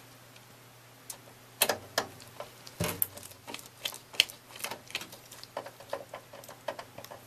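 Screwdriver driving a mounting screw through a computer case's back panel into the power supply: a run of irregular small clicks and ticks, starting about a second in.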